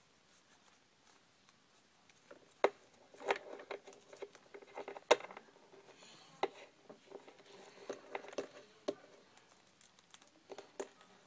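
Small plastic toy figures and accessories being handled and fitted on, giving irregular light clicks and taps of plastic on plastic and on the floor.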